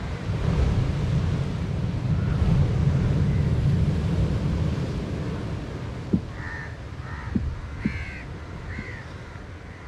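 Crows cawing, about four short calls in the second half, over a low steady rumble that is loudest in the first half.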